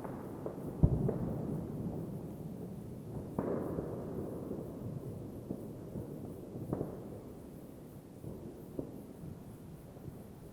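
New Year's Eve fireworks going off at a distance: a string of separate bangs, the loudest about a second in, each followed by a long rolling echo, over a steady background of faint crackling and popping.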